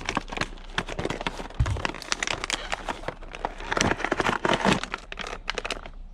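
Crinkling and rustling of packaging with many small clicks and knocks as items are handled and rummaged through, and a low thump about one and a half seconds in.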